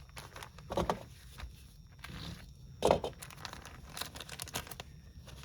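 Small parts being handled on a bench: plastic packaging crinkling, with scattered clicks and a louder knock about three seconds in.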